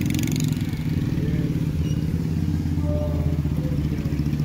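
Street traffic dominated by a steady engine hum close by, with motorcycles among the vehicles moving past. There is a brief clatter in the first half second.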